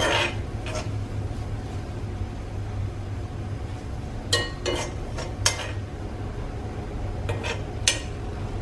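Metal spoon stirring fried onion and oil in an iron kadai: scraping with a scattering of sharp clinks of spoon on pan.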